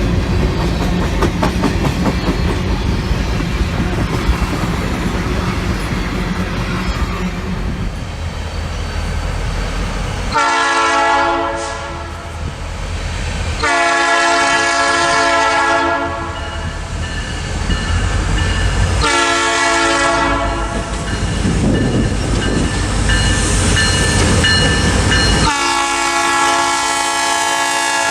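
Diesel locomotive of a Canadian Pacific train: a deep engine rumble, then four long blasts of its multi-chime air horn, each a chord of several notes.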